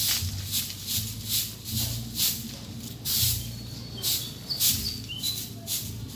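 Steel wire brush scrubbing a rusted motorcycle drive chain wet with gasoline, in short back-and-forth strokes about two a second.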